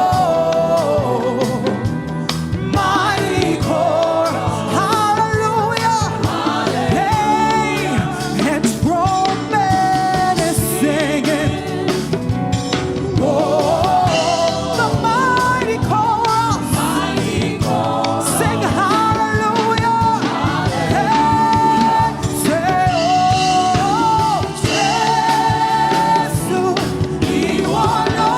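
Live gospel praise and worship music: a vocalist singing with held, wavering notes over a full band with drums and cymbals.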